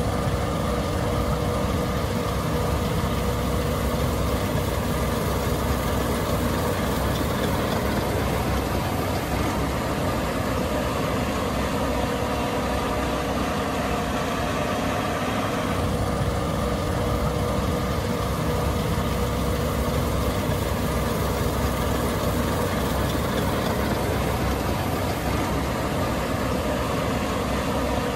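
Case IH 8260 Axial-Flow combine running steadily: a constant, heavy engine drone with a few steady tones held above it.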